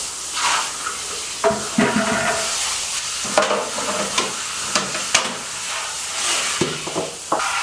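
Water running steadily from a hand-held shower head onto a tiled floor, with several sharp plastic knocks and clatters as the canister filter's head and media basket are taken apart for rinsing.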